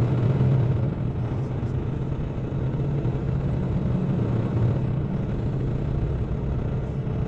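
Semi-truck driving steadily, a constant low engine drone with road noise.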